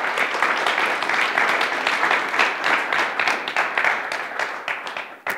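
A small audience applauding, many hands clapping at once, dying away near the end.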